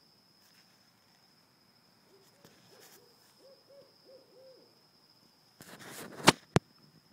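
An owl hooting: a quick run of about six short hoots, each rising and falling. Near the end comes a burst of rustling with two sharp loud clicks.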